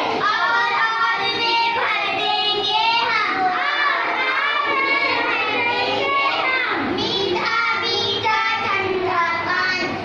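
Young girls reciting a Hindi children's poem in a sing-song chant, their voices continuous with held, gliding notes.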